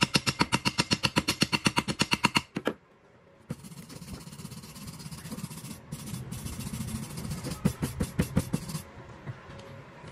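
Rapid steel-on-steel tapping of a chipping hammer knocking slag off a fresh stick weld on thin steel pipe, about seven strikes a second, stopping about two and a half seconds in. After a short pause, a steel wire brush scrubs the weld for about five seconds.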